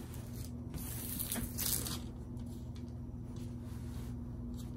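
A brief rustle of a diamond painting canvas and its plastic cover film being handled, about a second in, over a steady low hum.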